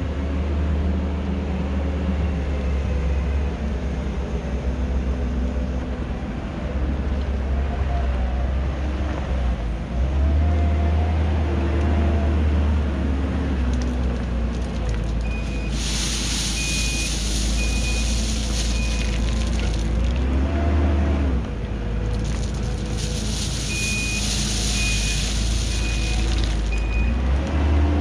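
Kubota SVL90-2 compact track loader's diesel engine running under load, its revs rising and falling as it works. Twice, about halfway through and again near the end, its reversing alarm sounds a run of about five beeps over a loud hiss.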